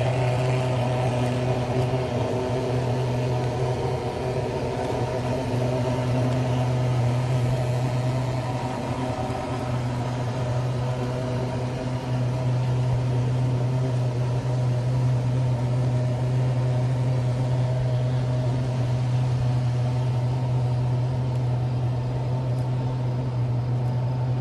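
A steady low mechanical hum, with several steady higher tones above it, unchanging throughout.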